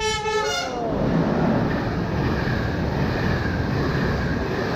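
A red CP passenger train's locomotive horn ends its blast with a falling pitch in the first second. The coaches then roll along the platform with a steady rush of wheel-on-rail noise and a faint high tone.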